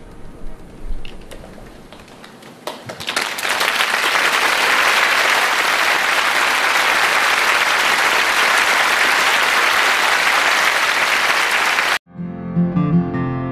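Concert audience applauding: a few scattered claps at first, then full, steady applause from about three seconds in. Near the end the applause cuts off abruptly and a short bright musical jingle begins.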